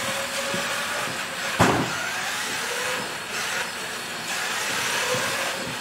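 Small radio-control car's motor and drivetrain running with a steady hissing whir and a faint whine that rises and falls in pitch as it drives. There is a single sharp knock about one and a half seconds in.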